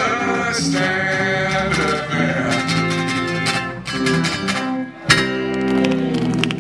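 Live band playing sixties-style pop with strummed guitars. The music drops away briefly about five seconds in and comes back abruptly.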